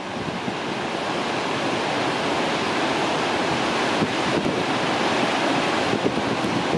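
Gullfoss waterfall: a steady rush of heavy water pouring and crashing over the falls.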